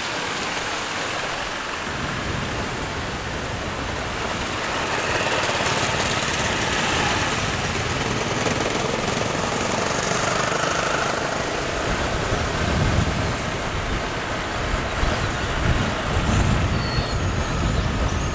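Steady rush of motorbike riding noise, engine and wind, on a paved road, a little louder after a few seconds, with heavy wind buffeting on the microphone from about twelve seconds in.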